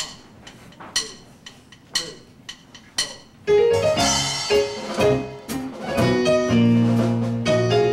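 Four sharp count-in taps about a second apart, then a band of keyboard and drums comes in loudly about three and a half seconds in, starting the introduction of a gospel choir song.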